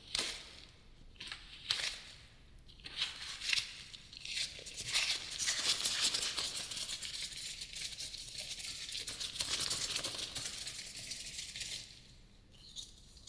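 Close-miked ASMR trigger sounds: a few soft taps, then a long stretch of dense crackling, like crinkling or scratching, that fades near the end.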